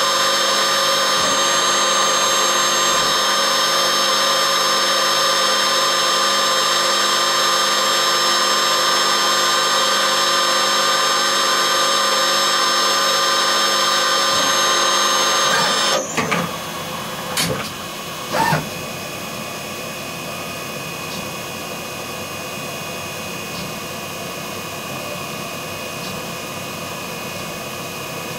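Emco E25 TCM CNC turn-mill lathe drilling holes in a metal part with a driven tool, a loud steady whine made of many tones. It cuts off suddenly about two-thirds of the way through, a couple of short knocks follow, and then a quieter steady machine hum.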